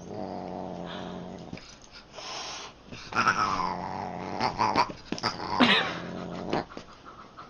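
A pet animal growling in two long stretches of low rumble, with a few higher calls that slide in pitch during the second.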